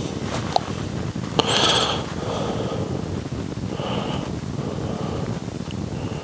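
Steady low hiss and rumble picked up by a clip-on microphone, with a breath a little over a second in and a couple of faint small clicks.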